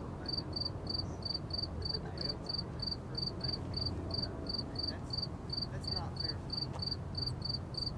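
A cricket chirping steadily in short, evenly spaced high chirps, about three a second, over a low rumble of distant freeway traffic.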